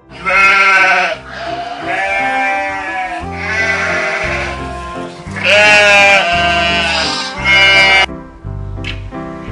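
A bleating farm animal calling about five times, each call long and wavering, over background music.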